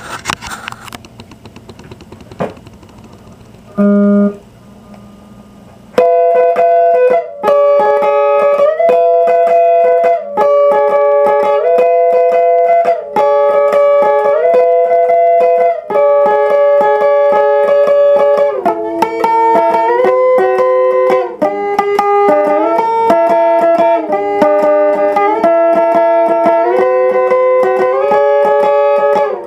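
Electric guitar playing a slow melody in picked two-note chords that change about once a second. The first few seconds hold only faint handling noise and one short note about four seconds in, before the playing starts.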